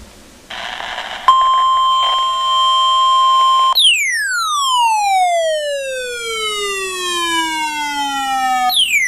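Emergency alert tones: a short burst of hiss, then a steady tone near 1 kHz for about two seconds, then a siren-like tone sweeping down in pitch over about five seconds, which starts again from the top near the end.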